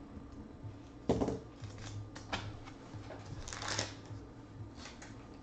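Hands handling trading cards and a clear plastic card holder: a sharp knock about a second in, then scattered light clicks and a brief rustle of card and paper.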